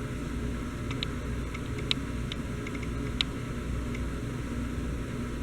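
1984 Casablanca Delta ceiling fan running with a steady low hum that swells slightly in level, with a few light ticks.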